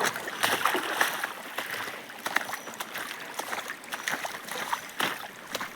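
Water splashing and sloshing in uneven, irregular strokes.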